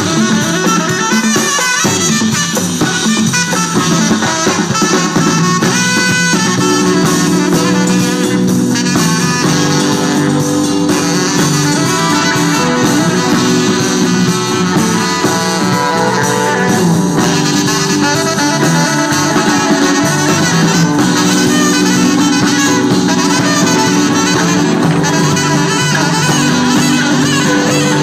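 Live rock-soul band playing without vocals: a saxophone plays held melodic lines over electric guitar, electric bass and a drum kit.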